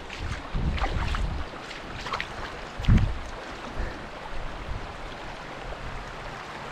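Shallow, rocky river running and rippling over stones, with a few low gusts of wind on the microphone, the strongest about three seconds in.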